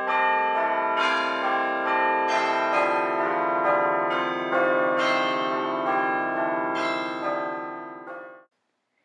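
Church bells ringing: one stroke follows another, each ringing on over the others. The peal fades away and stops about eight and a half seconds in.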